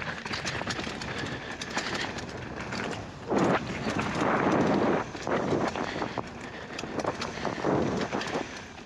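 Polygon Siskiu N9 mountain bike riding down a dirt flow trail: tyres rolling over the ground with a constant run of quick clicks and rattles from the bike, and louder rushing surges about three and a half seconds in and again near the end.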